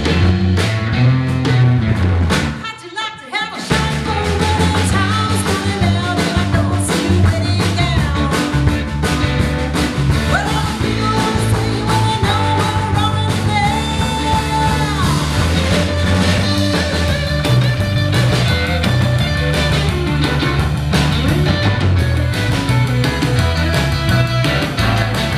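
Live roots-rock band playing a song with guitar, bass and drums, with some singing; the band stops briefly about three seconds in, then comes back in.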